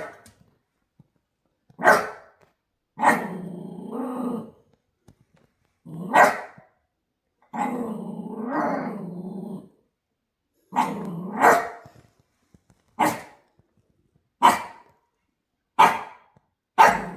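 Shiba Inu barking: about seven short, sharp barks, coming closer together near the end, mixed with several longer, lower, drawn-out vocalisations whose pitch wavers, the breed's 'talking' sound.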